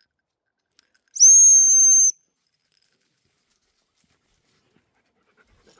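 A single blast on a dog-recall whistle, one steady high tone about a second long, blown to call a dog that has run too far ahead back to the walker.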